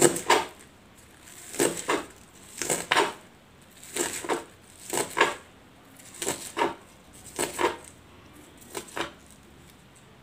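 Kitchen knife slicing spring onions finely on a cutting board: short knocks of the blade through the stalks onto the board, in groups of two or three, about once a second.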